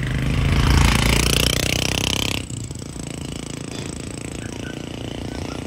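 A motor vehicle passing close by, its engine note and road noise loudest about a second in, then cut off abruptly about two and a half seconds in, leaving a steady, quieter background.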